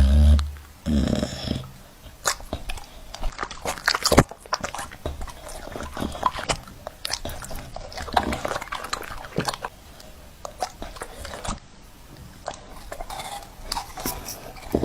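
A dog chewing and eating, with irregular crunching and smacking clicks.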